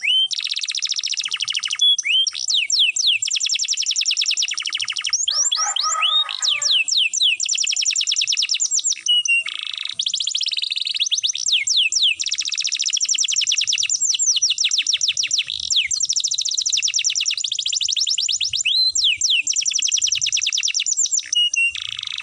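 Domestic canary singing its long rolling trills: fast runs of repeated sweeping notes, one after another almost without pause, with brief breaks.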